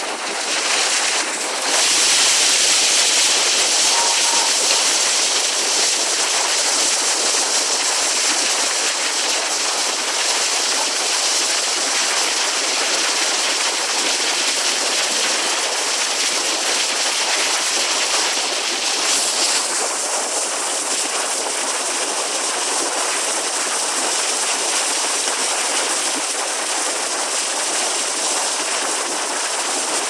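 Alpine waterfall pouring onto rocks: a loud, steady rush of falling water, the hiss softening a little about two-thirds of the way through.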